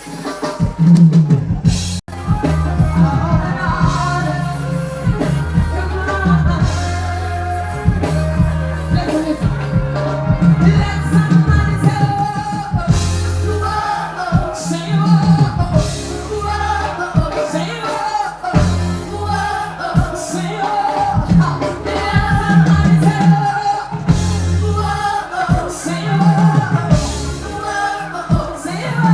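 A song starts about a second in and plays on loudly: a heavy, pulsing bass line and drum beat with singing over it.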